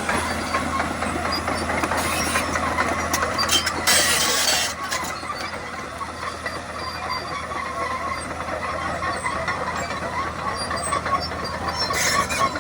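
Caterpillar D5M XL bulldozer working, its diesel engine running steadily with the metallic clatter and squeal of its steel tracks. A loud, harsh burst of noise comes about four seconds in, with shorter ones about two seconds in and near the end.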